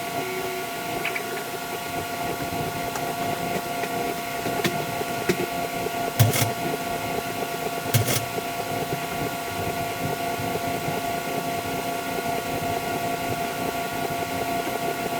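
A small motor running steadily with an even, unchanging hum of several fixed tones. Two loud sharp knocks come about six and eight seconds in, with a few fainter clicks before them.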